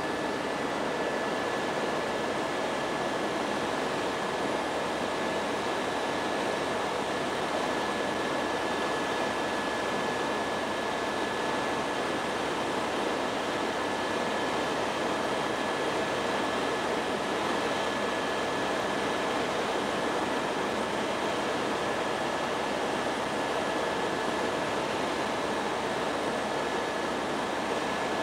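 Helicopter cabin noise during flight: a steady drone of the turbine engine and rotor with a thin, steady high whine, heard from inside the cabin.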